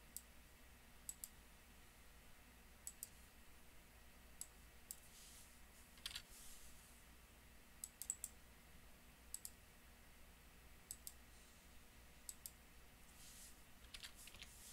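Faint computer mouse clicks, many in quick pairs, about every second or two, over quiet room tone.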